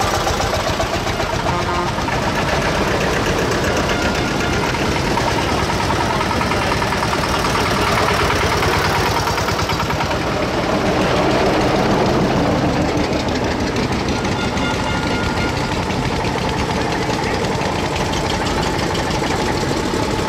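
Old tractor engines chugging with a knocking beat as vintage tractors drive past one after another; the loudest pass swells up about ten seconds in.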